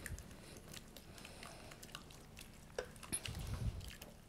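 Gloved hands working chicken pieces through a thick cream marinade in a glass bowl: soft wet squishing and small clicks, with a low bump about three seconds in.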